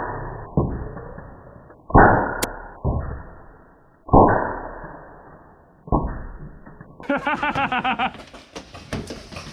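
Paintball marker shots in slowed-down, muffled playback: about six heavy low thuds, each fading out over about a second. Near the end normal-speed sound returns with a quick run of rapid pops.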